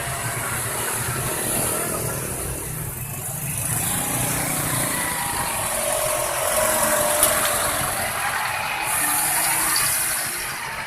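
A bus engine running, with a continuous hiss of traffic noise over it.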